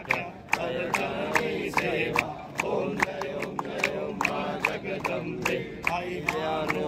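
A crowd singing a devotional aarti together, with steady rhythmic hand-clapping, about three to four claps a second.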